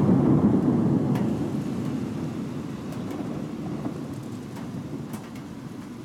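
Thunder rolling after a clap: a loud low rumble, loudest at the start and slowly dying away, over steady rain with a few sharp ticks of drops.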